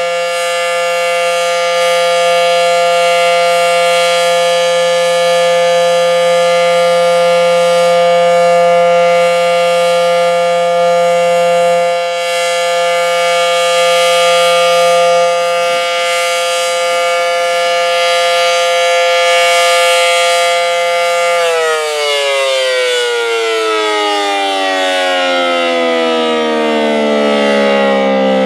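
Federal Signal SD-10 dual-tone outdoor warning siren sounding a steady two-tone chord in its monthly test. About three quarters of the way in it winds down, the pitch gliding steadily lower as the siren coasts to a stop.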